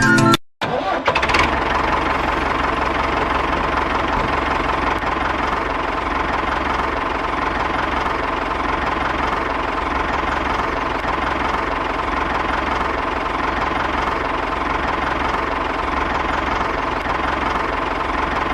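Small motor of a miniature model machine running steadily, starting about a second in.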